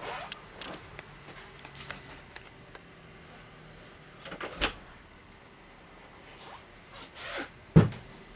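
Scattered knocks and rustles from someone moving through an RV's interior with a handheld camera. A louder knock comes about halfway through and a sharp, loud knock near the end.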